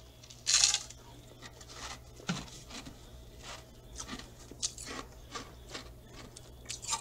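Close, small handling and mouth noises: a short breathy rush about half a second in, then scattered soft clicks and crinkles.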